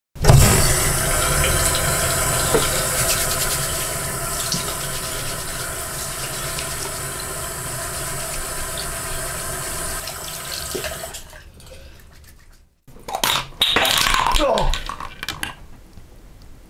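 Bathroom tap running into a sink, a steady rush of water that fades out about eleven seconds in. After a short pause comes a briefer, louder burst of sound with a falling pitch.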